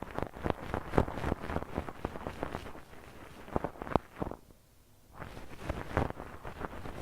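Ear-cleaning sounds made right at a TASCAM DR-40 recorder's microphone: an ear pick scraping and scratching, with sharp clicks and crackles. They pause briefly about four and a half seconds in, then carry on.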